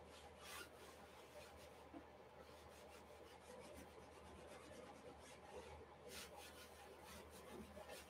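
Faint rubbing on a stretched canvas as acrylic paint is worked in by hand, with a few short scuffing strokes, clearest about half a second in and around six seconds in.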